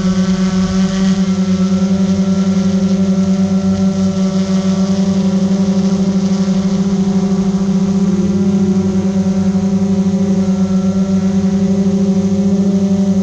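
Steady hum of a multirotor drone's motors and propellers on one low, unchanging pitch, with a fast pulsing beat in its loudness.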